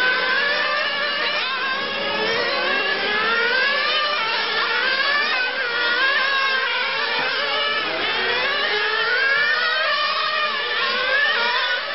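Several nitro radio-controlled racing cars' small glow engines running at high revs, their overlapping whines rising and falling in pitch as they accelerate and back off.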